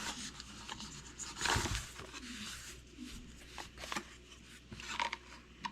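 Handling noise: light rustling with scattered small clicks and knocks, the loudest rustle about one and a half seconds in.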